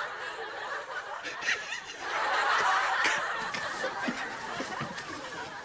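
Laughter, including a man laughing, swelling up again about two seconds in.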